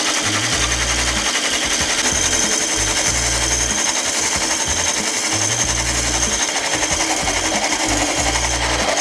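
Handheld electric blender with a wire whisk attachment running steadily with a high whine as it whips egg whites in a stainless steel bowl toward stiff peaks.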